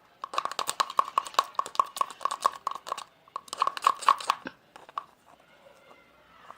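Glue slime being stirred in a bowl: quick wet, sticky clicks and squelches, several a second, with a short break about three seconds in, trailing off after about four and a half seconds.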